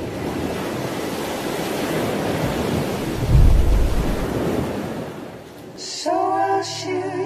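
Sea surf washing onto a beach, a steady hiss with a louder low rumble about three and a half seconds in, fading out after about five seconds. Music starts about six seconds in.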